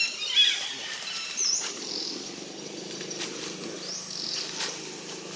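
Outdoor animal calls: a few short high chirps near the start, then two high whistled calls, one dipping and rising and a later one rising, over a steady low hum.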